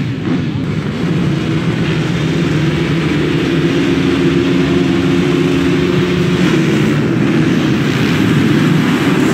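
A full field of motocross bikes revving their engines together at the start of a race, many engines overlapping into one steady, loud mass that grows slightly louder.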